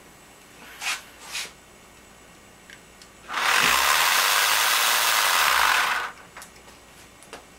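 A Dremel rotary tool running for about three seconds, starting and stopping abruptly, spinning the homemade soda-can jet engine's turbine with a loud steady whir. Two short knocks come about a second in.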